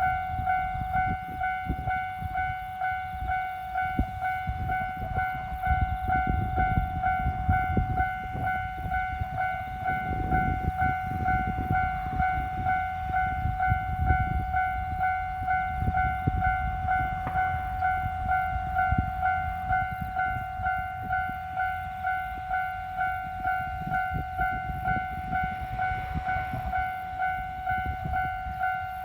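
Japanese railway level-crossing warning bell ringing steadily in a two-pitch clang, about two strikes a second, over the low rumble and wheel clatter of a train passing, loudest around the middle.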